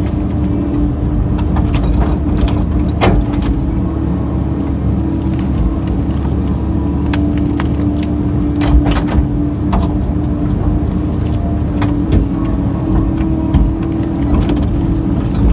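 Kobelco excavator's diesel engine and hydraulics running steadily under load, heard from inside the cab with a steady whine over the rumble. Scattered sharp cracks and knocks come as the bucket digs and tears roots out of the ground.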